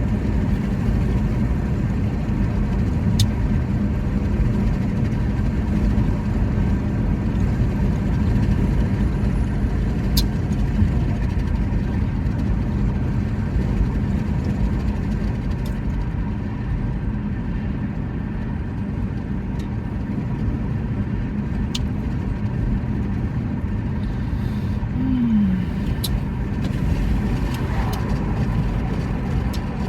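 Steady low vehicle rumble, with a few faint sharp clicks.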